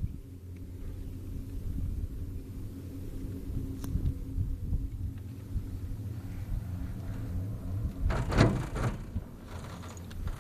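Low, steady rumble of a vehicle in motion, with a faint hum under it. A single sharp click comes about four seconds in, and a louder rush of noise about eight seconds in.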